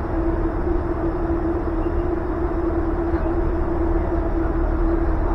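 Steady hum of an air-supported sports dome's inflation blowers: a constant tone over a low rumble, unchanging throughout.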